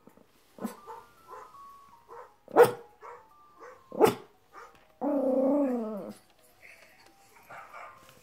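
Recorded dog barks playing from a laptop's speakers: a few sharp barks, the loudest about two and a half and four seconds in, then one drawn-out, slightly falling dog cry about five seconds in.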